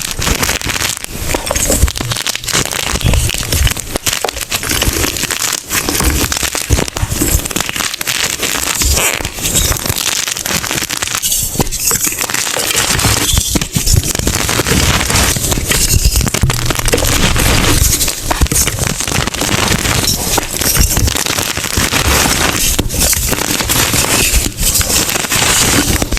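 Blocks of gym chalk being crushed and squeezed by hand, a loud, continuous, crispy crunching and crackling.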